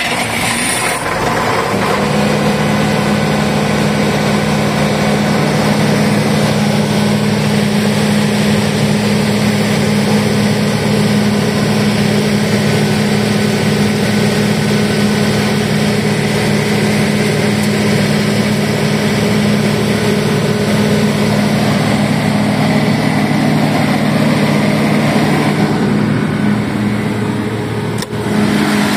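FG Wilson P200H 200 kVA diesel generator, just started, settling to a steady speed within the first couple of seconds and then running evenly. It dips briefly in loudness near the end.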